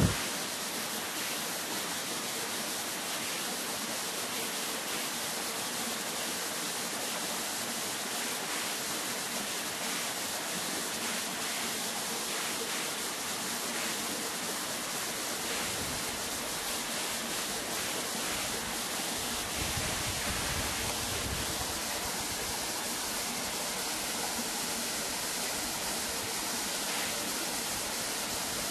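Steady, even rushing hiss with no calls or other distinct sounds in it, and a brief click right at the start.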